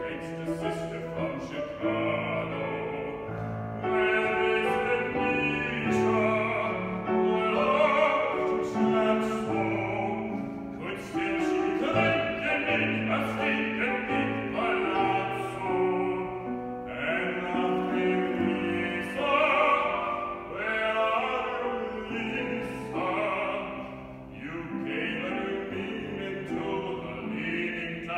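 A male bass-baritone sings a Broadway show tune to grand piano accompaniment.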